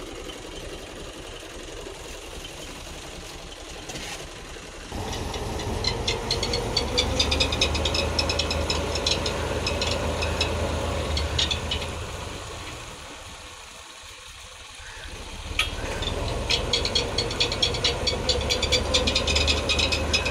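Tractor engine running and turning a belt-driven tubewell pump through a flat belt, with a fast rattle of clicks from the belt drive. The sound steps up about five seconds in, sinks around thirteen seconds and comes back sharply after fifteen.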